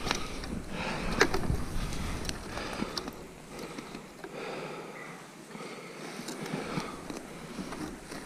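Scattered sharp clicks and rustling as a trap and a caught fisher are handled.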